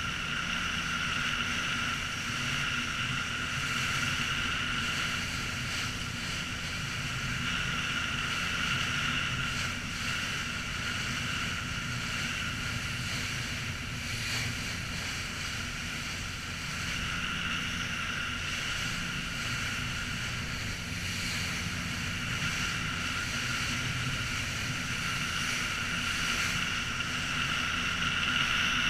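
A motorboat's engine running steadily under way: a continuous drone with steady high-pitched tones above it, mixed with the rush of water and wind.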